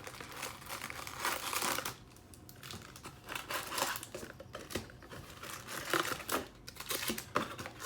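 Wrapped baseball card packs crinkling and rustling as they are handled and pulled out of a cardboard hobby box, in irregular bursts with a few light taps.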